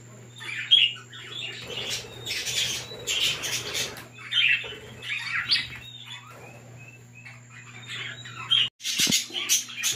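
A flock of budgerigars chattering, with many short chirps and squawks overlapping, quieter for a couple of seconds past the middle.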